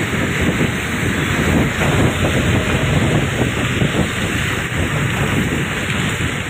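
Steady road noise from travelling on a wet road: a low rumble with the hiss of tyres on water, mixed with wind buffeting the microphone.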